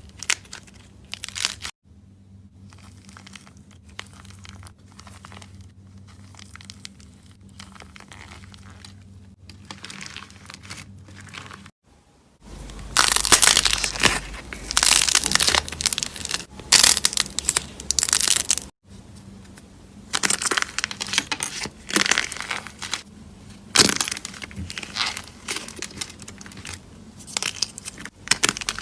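Slime being squeezed, poked and stretched by hand, making crackling, crunching and sticky popping sounds. It comes in several separate takes that change abruptly about two, twelve and nineteen seconds in: a quiet stretch of light clicks first, then much louder dense crackling bursts.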